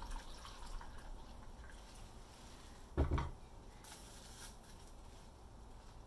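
Water trickling from a glass pitcher onto corn-starch packing insulation in a glass bowl, with a single dull thump about three seconds in, the loudest sound here. Just after it comes a brief wet squish as the soaked insulation is pressed down into the water.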